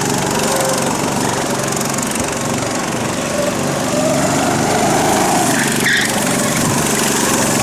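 Go-kart's small engine running hard, its pitch rising and falling again and again as the throttle opens and eases through the slalom.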